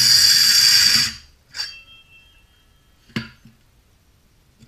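Circular saw with a diamond-coated blade cutting partway into a concrete paver: a loud, steady high whine that cuts out about a second in. Then two short knocks, the louder one about three seconds in.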